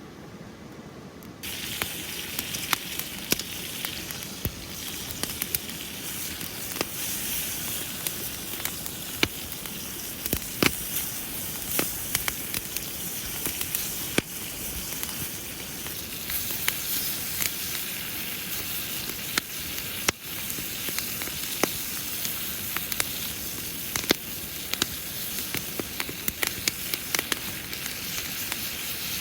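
Food sizzling on a grill over a campfire, a steady hiss with frequent sharp pops and crackles; it starts abruptly about a second and a half in.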